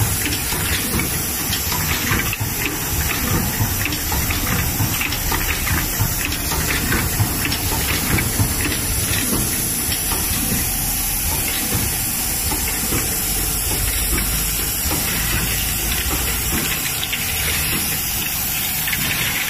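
HSP-1N rotary cup filling machine running: a steady hiss of air from its pneumatic cylinders, with a dense stream of short clicks and clatter from the mechanism.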